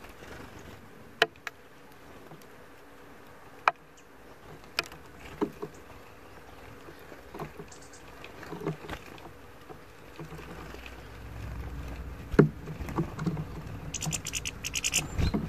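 European goldfinches at a metal dish of black sunflower seeds: sharp, irregular clicks and taps as a bird pecks and cracks seeds and its bill knocks among the seeds and on the pan. Near the end a quick run of rapid ticks comes as a second goldfinch flutters in to land.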